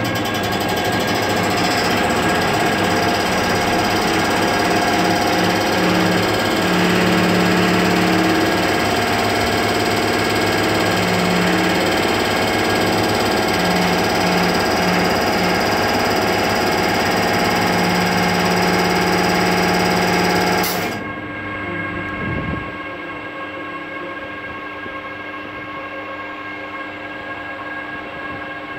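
V63 electric locomotive's air compressor running loud, a rapid mechanical pulsing over several steady tones as it charges the main air reservoirs, then cutting out suddenly about 21 seconds in. A quieter steady hum with a few steady tones from the powered-up locomotive carries on after it stops.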